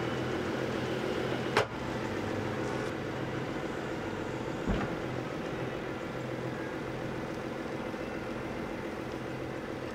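Tractor engine running steadily to work the hydraulics of a tipping trailer as it tips a load of chopped maize. A sharp knock comes about one and a half seconds in, and a dull thump near the middle.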